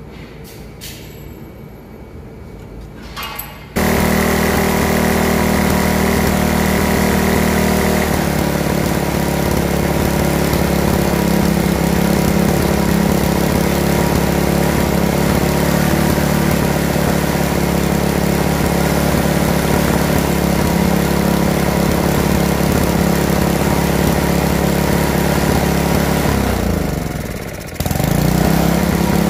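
Poulan Pro's small petrol engine comes in suddenly about four seconds in and runs steadily at high speed while its throttle/governor linkage is adjusted: the engine speed is still too high. Near the end the revs drop sharply and then pick back up.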